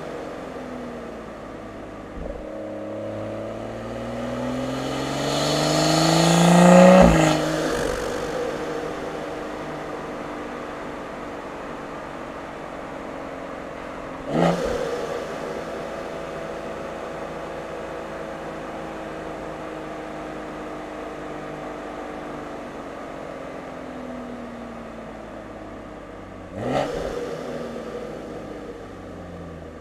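Stage 2 tuned BMW M240i's B58 3.0-litre turbocharged inline-six, with a catted downpipe and resonator delete, heard at the intake and exhaust. It revs up hard for about four seconds to a sharp crack about seven seconds in, then runs at a steadier, lower pitch. Two brief sharp rev spikes come near the middle and near the end.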